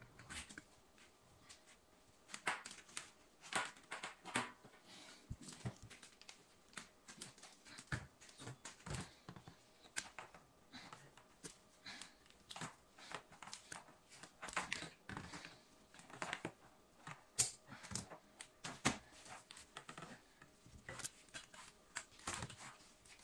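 Faint, irregular clicks and rustles of gloved hands working a plastic corrugated drain hose and pliers on a spring hose clamp, fitting the hose onto a dishwasher's drain outlet.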